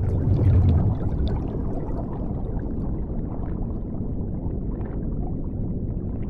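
Underwater ambience: a muffled low rumble of moving water with scattered bubble pops, loudest in the first second.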